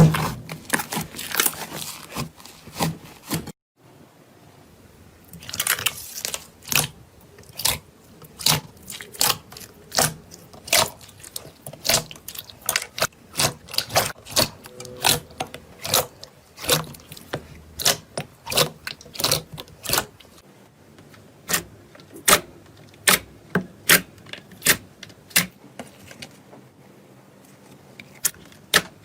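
Slime being squeezed and pressed, giving a run of sharp pops and clicks about one or two a second, with a short break about three and a half seconds in.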